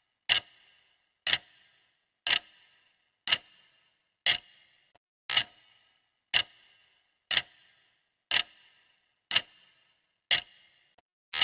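Clock ticking steadily, one sharp tick each second, each with a short fading ring.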